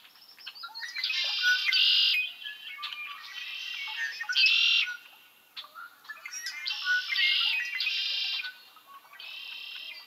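Male red-winged blackbird singing its conk-la-ree song several times, each song ending in a buzzy trill.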